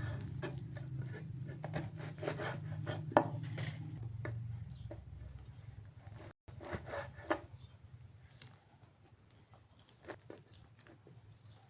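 Scattered light knocks and clicks of objects being handled, with one sharper click about three seconds in and a low steady hum under the first half.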